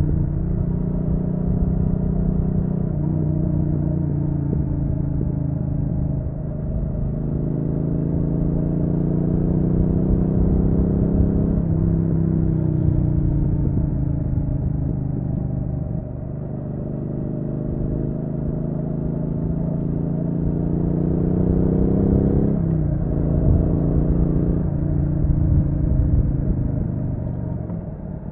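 Triumph Street Twin's 900 cc parallel-twin engine running under way, heard raw from on board. The engine note climbs steadily in pitch and then drops sharply several times as the rider rolls on and off the throttle and changes gear.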